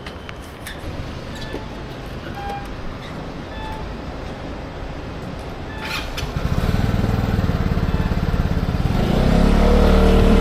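Quiet surroundings with a few clicks and short beeps, then a Vespa scooter's engine starts about six seconds in and runs steadily, getting louder near the end.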